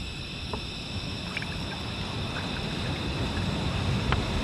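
Portable gas camp stove burning with a steady rushing hiss under a pot of water that is being brought to the boil, growing slightly louder, with a few faint ticks.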